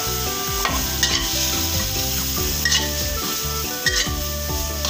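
Metal spatula scraping and stirring chopped salted mustard greens around a hot wok with no oil, with several sharper scrapes against the pan about a second in, near the middle and near the end.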